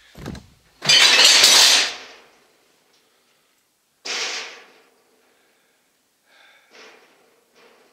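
A thump, then a loud clattering crash lasting about a second, and a shorter rattle about four seconds in, as the expanded-metal mesh door of a wooden storage cabinet is swung open. A few faint knocks follow near the end.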